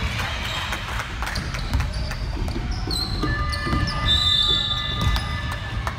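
A basketball being bounced on a court as play goes on, with repeated knocks. From about halfway there are several short, high-pitched squeaks of sneakers on the floor.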